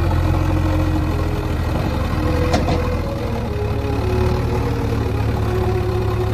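Diesel engine of a JCB backhoe loader running steadily as the machine moves, with a single sharp knock about two and a half seconds in; the low engine note shifts slightly about three seconds in.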